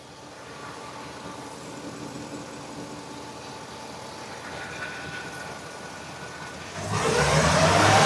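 Ford 6.2-litre gasoline V8 of a 2017 E-450 idling steadily, then revved about seven seconds in, the engine note climbing in pitch and loudness. It runs evenly after new fuel injectors, with no misfire showing on the power-balance test.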